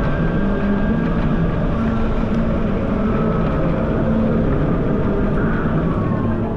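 Heavy, steady wind noise buffeting an action camera's microphone while riding an electric motorcycle, with a few faint whining tones above it that drift slightly in pitch.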